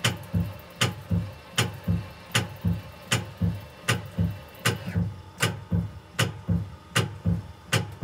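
Zechini Saturn book block back rounder running through its cycle. A sharp clack comes about every three quarters of a second, with duller knocks in between, in a steady, even rhythm.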